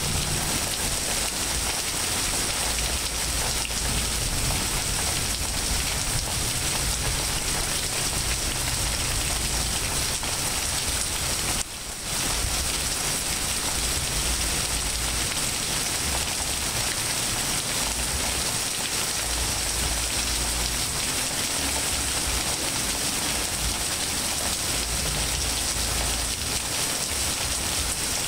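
Steady rain falling on leaves, grass and pavement during a rainstorm. The sound briefly dips out just before twelve seconds in.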